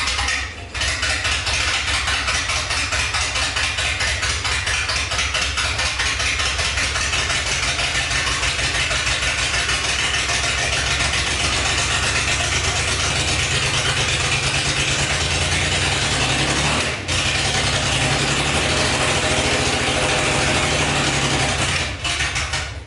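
Datsun 240Z's freshly rebuilt L24 straight-six engine running steadily at idle, with an even stream of firing pulses.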